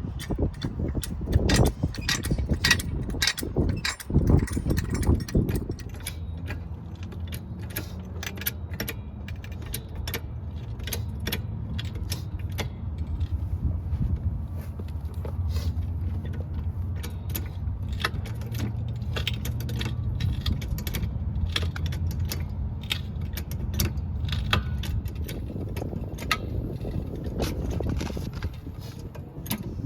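Car jack being worked to lift the car: repeated metallic clicks and rattles, with heavy knocks in the first few seconds and a steady low hum through most of the middle.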